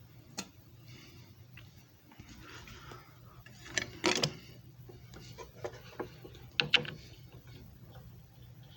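Clicks and clacks from a JFJ Easy Pro disc repair machine being handled, with two louder clacks about four seconds and nearly seven seconds in, over a low steady hum.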